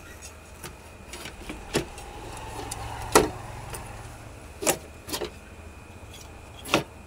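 A handful of short, sharp clicks and knocks, about five in all, the loudest about three seconds in, over a faint steady low hum.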